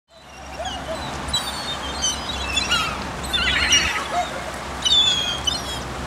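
A flock of seagulls calling while they feed: short, high-pitched cries, one after another and sometimes overlapping, over a low steady rumble.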